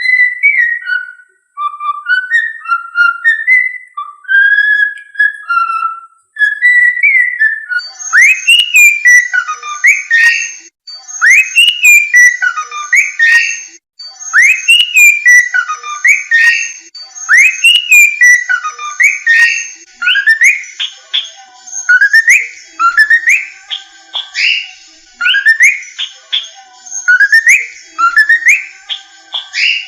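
A tune whistled in clear, separate notes. About 8 seconds in it changes to a fast, repeating run of upward-swooping whistles, roughly one phrase a second, with faint clicks above them.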